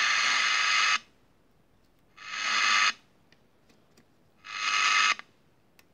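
FM radio kit's loudspeaker hissing with receiver noise. The hiss cuts off abruptly about a second in, then comes back twice for under a second, swelling up each time before cutting off sharply, with a few faint ticks in the silent gaps.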